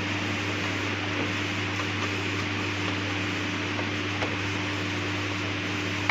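A steady low hum and hiss, with a few faint light clicks.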